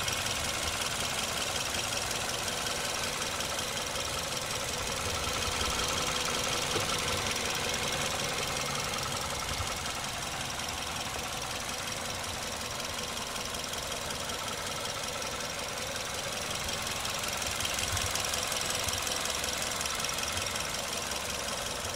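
Suzuki Ertiga's 1.4-litre petrol engine idling steadily, heard close up with the bonnet open.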